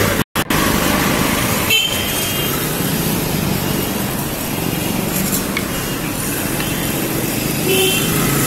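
Busy street traffic: a steady rumble of passing vehicles, with short horn toots about two seconds in and again near the end. The sound cuts out for an instant near the start.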